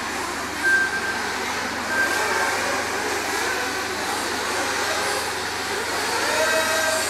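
Several nitro RC off-road buggies and truggies racing together, their small two-stroke glow engines making a steady dense buzz. Single cars rev out briefly in higher pitched whines about a second in, about two seconds in and again near the end.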